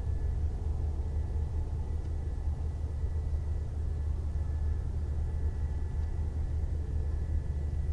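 Steady low machinery rumble from an airliner being de-iced, with a faint, steady high-pitched whine above it.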